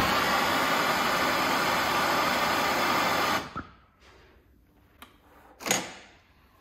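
MAPP gas hand torch lit with a click and burning with a steady hiss for about three and a half seconds, then shut off, as its flame melts the freshly cut end of a lawnmower's starter cord. A few faint knocks follow.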